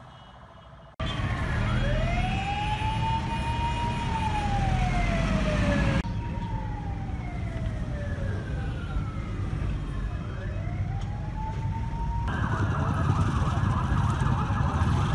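Police vehicle siren wailing, its pitch sweeping slowly up and down over a steady low rumble. It cuts in abruptly about a second in, and near the end a higher, faster-warbling siren takes over.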